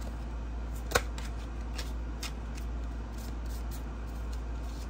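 Oracle cards being shuffled and handled: scattered soft card flicks and taps, with one sharper click about a second in, over a steady low hum.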